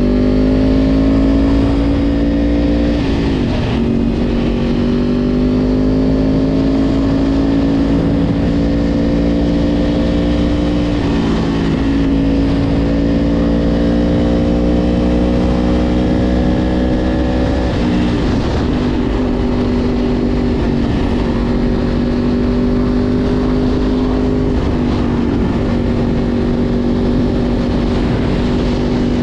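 Yamaha R1 sport bike's inline-four engine running under way at a fairly steady pitch, with brief breaks and small drops in pitch four times that sound like gear changes, over low wind and road rumble.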